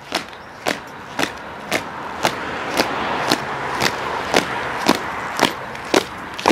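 Marching boots of a ceremonial guard striking paving stones in unison, a sharp steady step about twice a second, over a rushing background noise that swells about halfway through.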